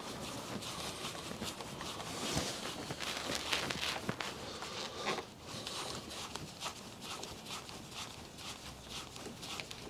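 Irregular small clicks, scrapes and rustling of hands and tools at work fastening the screws and nuts of a trailer-hitch electrical socket, busier in the first half and sparser after about five seconds.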